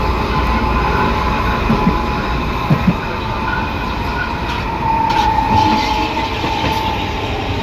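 São Paulo Metro train running, heard from inside car G181: traction motor and inverter whine with a growl ("ronco") from the reduction gearbox, which the uploader thinks is probably short of lubrication. A few short thumps from the wheels on the track come about two to three seconds in.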